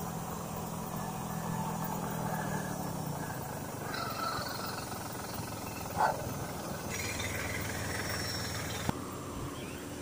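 Road traffic: a steady hum of passing cars and tyres, with a low engine drone that fades out about three seconds in. A brief high chirp sounds about six seconds in.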